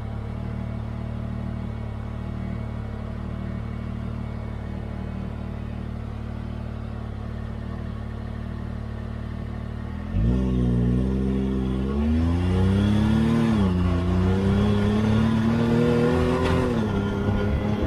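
Can-Am Maverick R side-by-side's turbocharged three-cylinder engine running at a steady low speed. About ten seconds in it suddenly gets louder and revs up, its pitch climbing, dipping briefly, then climbing again as the machine accelerates.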